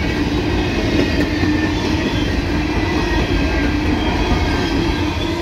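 Empty open-top coal hopper cars rolling past close by: a steady rumble and rattle of steel wheels on rail with a steady tone running through it.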